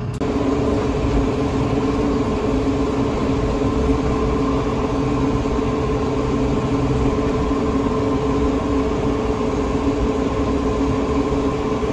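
New Holland tractor's engine running steadily under way, heard from inside the cab, with a steady hum over a low rumble that does not change.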